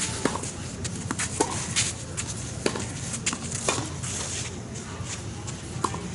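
Tennis rally on a hard court: sharp knocks of racket strings striking the ball and the ball bouncing, about one every second, over a steady outdoor hiss.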